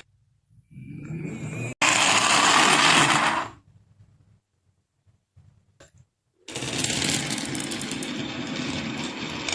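Marbles rolling and rattling fast down a wooden marble run track, in two stretches: a loud run that cuts off sharply about two seconds in, then a gap, and a steady run from about two-thirds of the way through.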